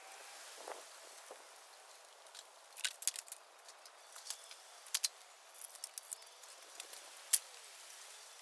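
Dry bamboo crackling, with scattered sharp snaps over a faint steady hiss; the loudest snap comes about seven seconds in.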